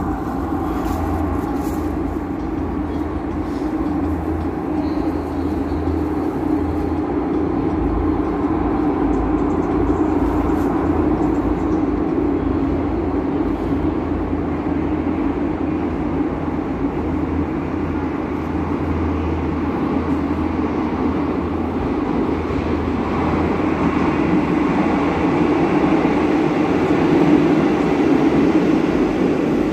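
Metro train approaching through the tunnel: a steady rumble that grows louder toward the end as the train enters the platform.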